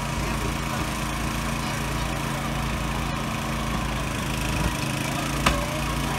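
The motor of a hydraulic rescue tool's power unit runs steadily while a spreader is worked into a car door, with one sharp pop near the end.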